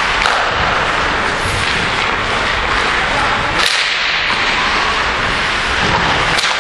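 Ice hockey play heard from the stands: a steady hiss of rink noise with a sharp crack about three and a half seconds in, the kind a stick or puck makes.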